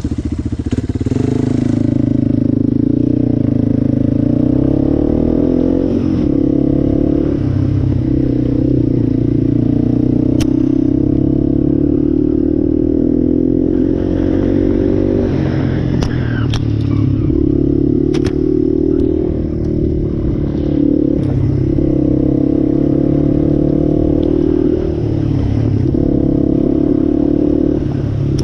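Single-cylinder ATV engine running while riding along, its pitch rising and falling with the throttle, with a few sharp clicks of clatter partway through.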